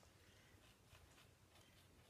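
Near silence: room tone with a few faint, soft rustles.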